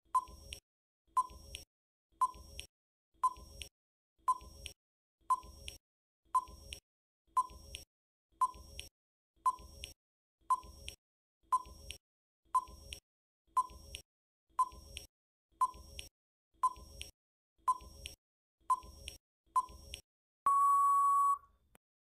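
Quiz countdown timer sound effect: a short tick about once a second, twenty in all, then a steady electronic beep of about a second as time runs out.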